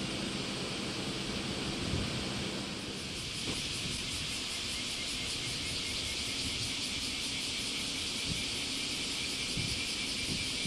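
Steady outdoor background hiss with a low wind rumble on the microphone, and no train running. From about three seconds in, the high hiss takes on a faint fast pulsing.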